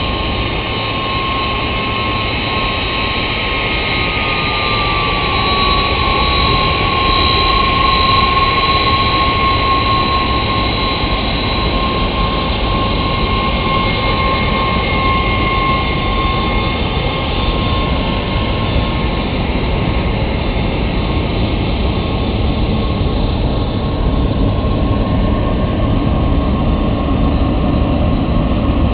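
KDC-10 tanker's three CF6-50 turbofan jet engines running at taxi power as the trijet moves along the ground close by. A high engine whine, dipping slightly in pitch a few seconds in, sits over a loud, steady rumble.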